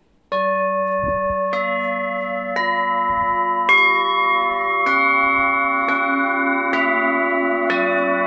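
Eight hand-hammered full moon singing bowls struck one after another with a padded mallet, about one strike a second. Each bowl keeps ringing, so the tones pile up into a sustained, overlapping chord.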